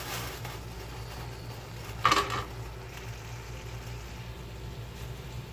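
Mutton liver simmering and sizzling softly in its masala on a tawa over a steady low hum. About two seconds in, a single sharp clank as the metal spatula is knocked against or set down on the tawa.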